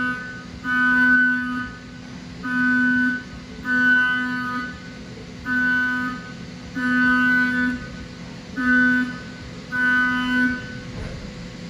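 Six-flute half-inch ceramic end mill cutting Inconel 625 in a Haas UMC-750SS: a steady pitched whine that comes and goes in bursts of about a second, seven times, as the cutter enters and leaves the cut. After more than 12 minutes of non-stop cutting the sound is unchanged, a sign that the tool is holding up.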